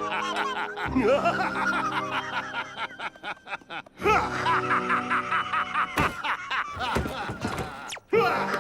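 A cartoon character laughing, a snickering laugh in quick repeated pulses, over background music. The laughing breaks off and starts again a few times.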